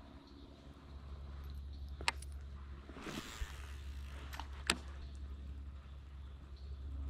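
Quiet gear handling on a fishing kayak over a steady low hum: two sharp clicks, one about two seconds in and one near five seconds, with a brief swish between them.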